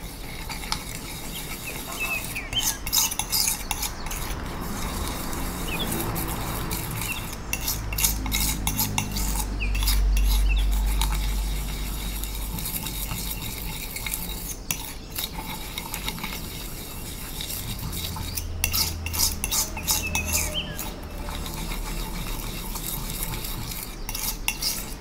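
Metal spoon rubbing and scraping in circles against a ceramic tile, blending yellow and blue pigment with water into a green watercolour paste, with scattered clicks of metal on tile and a low rumble partway through.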